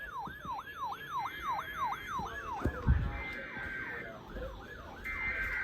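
Electronic siren-style alert tone for an incoming tornado warning, sweeping down and up about three to four times a second and fading somewhat after about halfway.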